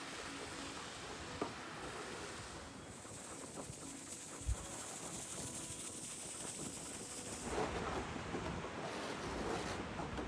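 Steady outdoor wind noise in a blizzard, with gusts buffeting the microphone that grow louder and rougher near the end. A brief low thump about halfway through.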